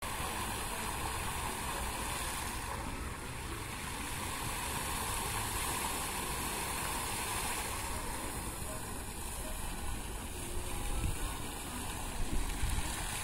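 Park fountain's water jets splashing steadily into the pool, a continuous rushing hiss. A few low rumbles come in near the end.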